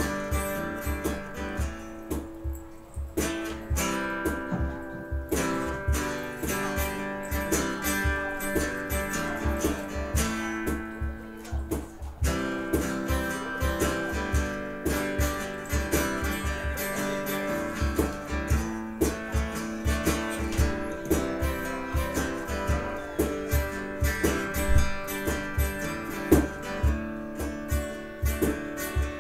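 A live band playing an instrumental passage: guitar lines over a steady beat.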